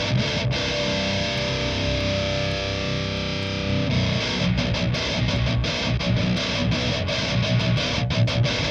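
Heavily distorted high-gain electric guitar playing a metal riff. A chord rings out and is held for about three seconds, then fast, chugging rhythm playing takes over.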